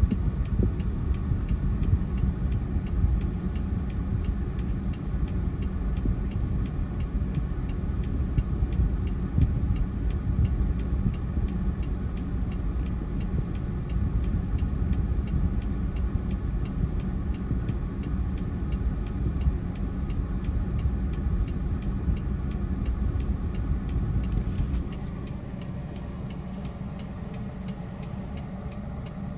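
Motor vehicle engine running steadily, a low rumble that drops in level about 25 seconds in.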